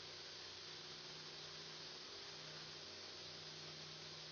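Faint steady hum with an even hiss underneath, unchanging throughout, with no distinct cutting or machine sounds standing out.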